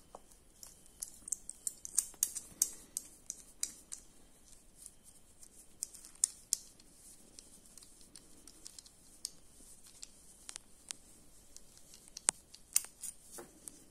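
Light irregular clicks and small scrapes of brass lapel badges and a screw-back nut being handled and set down on a leather tray.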